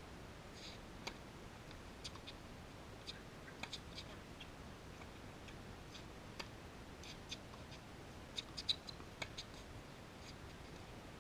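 Faint, scattered pops and ticks of tennis balls struck by rackets and bouncing on a hard court, the loudest about three quarters of the way through.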